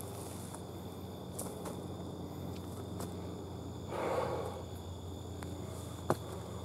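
Footsteps of a hiker walking on a dry dirt and leaf-litter forest trail: scattered light crunches and clicks, with a louder scuff about four seconds in.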